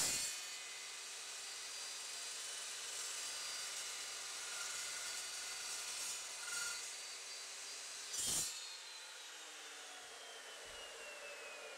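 Evolution S355CPLS dry-cut metal chop saw with a faint steady whine. About 8 s in there is a brief knock as the saw head is lifted, and the whine then slowly falls in pitch as the carbide-tipped blade spins down.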